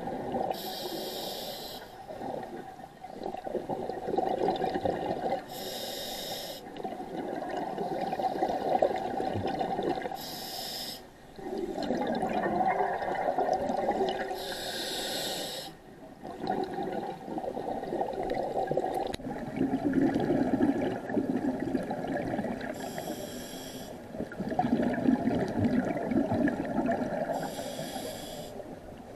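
Scuba diver breathing through a regulator underwater. Six times, a short hiss of an inhale comes through the demand valve, and each is followed by a longer bubbling rush of exhaled air.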